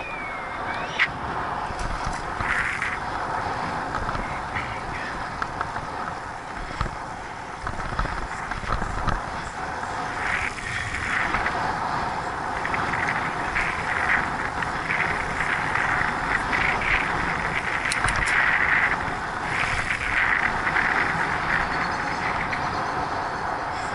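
Wind rushing over an action camera's microphone, mixed with bicycle tyre and road noise, while riding at about 30 to 38 km/h. A couple of sharp knocks near the start, and the rushing grows louder in the second half as speed rises.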